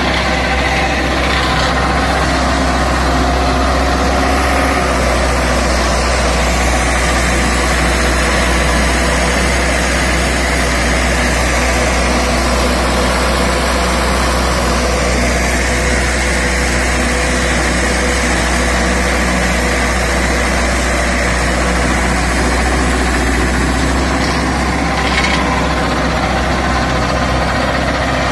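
Tractor engine running steadily under load, pulling a super seeder through rice stubble: a constant, even drone with no breaks.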